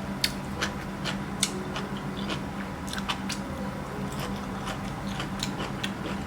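Close-miked eating: irregular crisp crunches and wet mouth clicks of chewing, over a steady low hum.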